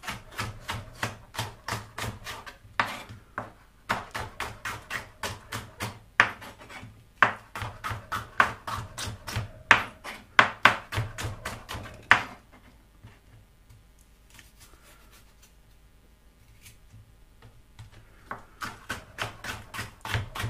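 Chef's knife slicing red pepper into strips on a white plastic chopping board: quick, even knife taps on the board, about four a second. The taps stop for several seconds about halfway through, then start again near the end.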